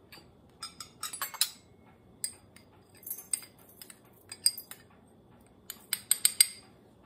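Metal teaspoon clinking and scraping against a small glass bowl while loose dried ginger and spearmint tea is scooped into a teapot: quick, irregular clinks, each with a brief high ring.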